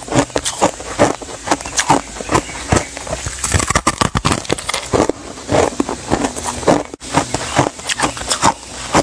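A frozen clump of crushed ice being bitten and chewed, crunching in a rapid, irregular run of sharp cracks.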